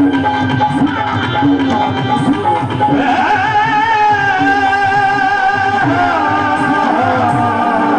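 Instrumental interlude of a devotional bhajan: a steady drum rhythm under sustained melody lines. About three seconds in, a new melody rises in and carries on with a wavering vibrato.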